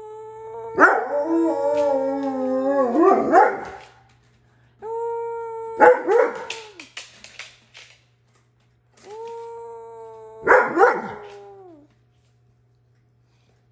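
Alaskan Malamute 'talking': three drawn-out woo-woo howls, each held on a steady pitch and then breaking into a louder, rougher yowl at the end. The calls come about a second apart.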